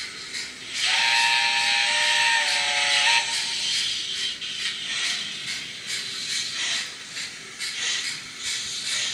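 Sound-fitted Hornby TT-scale digital steam locomotive model playing a recorded multi-tone chime whistle through its onboard speaker, over steam hiss. The whistle lasts about two seconds and dips slightly in pitch before cutting off. Steam hiss with soft irregular pulses follows.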